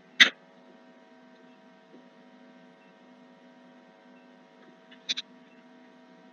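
Computer mouse clicks: one sharp click just after the start and a quick double click about five seconds in, over a steady electrical hum.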